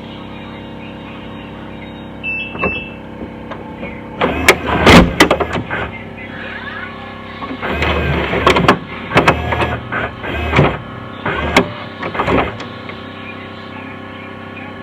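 Funai VCR/DVD combo player running with a steady hum, its mechanism whirring and clunking in bursts with clicks from about two seconds in.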